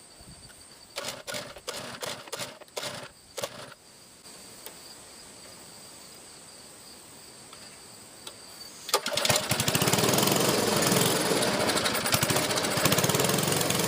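A few clattering knocks, then about nine seconds in a 1970s Clinton air-cooled small engine starts suddenly and runs loudly with a rapid, even firing rhythm.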